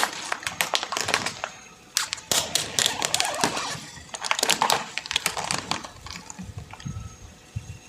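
Objects crunching and crackling as they are crushed under a car's tyre, in about three dense bursts of snapping during the first five seconds, then fainter crackles.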